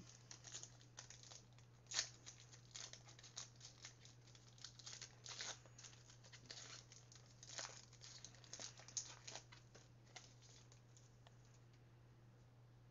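Faint tearing and crinkling of a foil trading-card pack wrapper being ripped open, with soft crackles of the cards being handled; it dies away about ten seconds in. A steady low electrical hum runs underneath.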